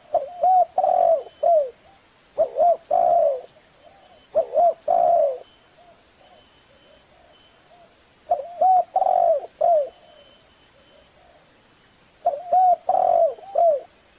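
Spotted dove cooing in five phrases of gliding coos, each about a second long, with pauses between them and a longer pause near the middle. It is the male's cooing call, played as a lure to draw in wild spotted doves.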